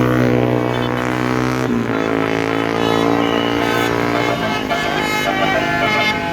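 Bus's Basuri multi-trumpet telolet air horn playing a tune in long held notes, the chord changing about two seconds in and again a little past four seconds.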